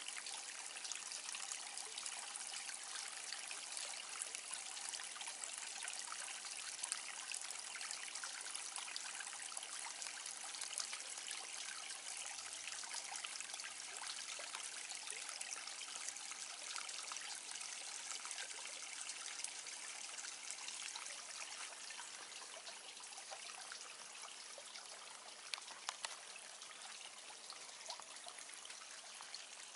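Garden pond water trickling steadily over stones, faint and even, with a low steady hum underneath.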